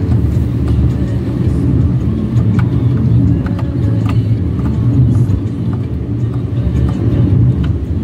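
Car driving at steady speed, heard from inside the cabin: a continuous low engine and road rumble.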